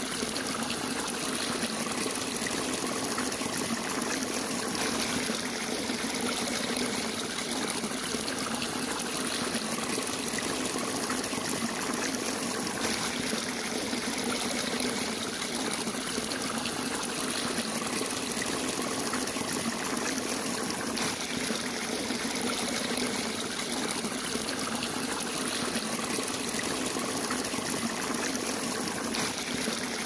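Shallow water trickling and flowing steadily over sand, a continuous even rush with no distinct splashes standing out.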